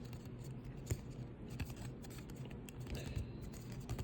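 1993 Bowman baseball cards being handled and peeled apart where they stick together: a few faint, crisp clicks of card stock over a low steady hum.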